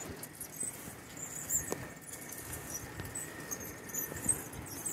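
Bicycle being ridden on pavement, heard through a handlebar-mounted phone: light rattling and clicks, a few sharp knocks, and scattered short high chirps.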